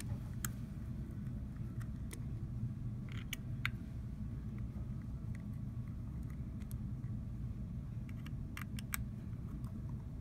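Small sharp metal clicks and ticks of an L-shaped Torx key working the tiny screws of a RED Epic-X camera's optical low pass filter mount, bunched about three seconds in and again near the end. A steady low hum runs underneath.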